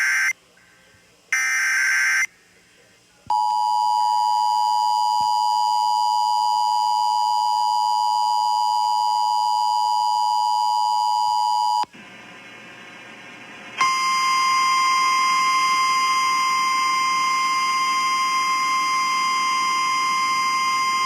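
Emergency Alert System tornado warning broadcast on FM radio. It opens with the end of one harsh, buzzing SAME data burst and then one more full burst. The two-tone EAS attention signal follows and holds steady for about eight seconds, then a short quieter gap, and from about fourteen seconds in a single steady alert tone that keeps sounding.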